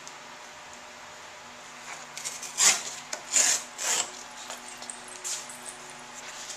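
Heavy 140 lb watercolor paper being torn by hand along a ruler: about two seconds in come three rasping rips roughly half a second apart, then lighter paper rustling.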